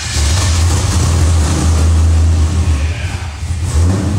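A newly built Jeep's engine catching on its first start and running loud with a steady low drone; the revs sag briefly about three and a half seconds in, then pick back up.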